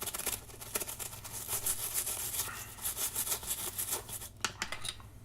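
Rapid back-and-forth scrubbing on a multimeter's plastic casing to clear battery-acid corrosion, strongest at the start and then fainter, with a few sharp clicks near the end.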